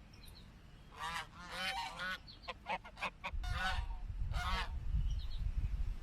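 Geese honking: a run of about half a dozen calls, some quick and close together. A low, uneven rumble sets in about three seconds in.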